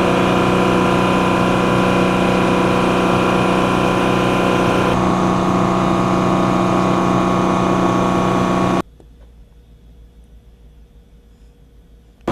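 Loud, steady machinery running, with several steady whining tones over a low rumble. About three-quarters of the way through it cuts abruptly to a much quieter low rumble, and it comes back loud at the very end.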